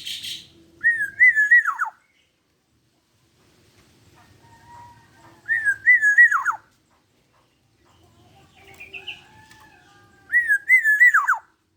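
Black-naped oriole (kepodang) singing: three short, fluty whistled phrases about five seconds apart, each wavering and then dropping steeply in pitch at the end.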